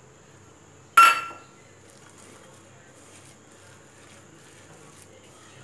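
A steel utensil strikes a stainless-steel mixing bowl once, about a second in, with a short metallic ring that dies away quickly. Faint soft sounds of batter being worked by hand follow.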